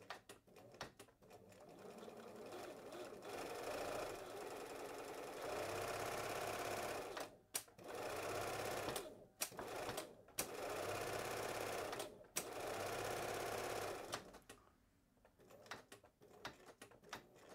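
Bernina Record 930 Electronic sewing machine running. It picks up speed slowly at first, then runs in stretches of a few seconds with several brief stops, and stops a few seconds before the end.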